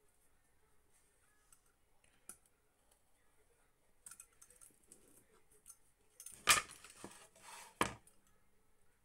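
Masking tape and a craft knife being handled on a cutting mat: faint crinkling and small clicks, then, about two-thirds of the way in, a louder rustling scrape with two sharp knocks, the first the loudest.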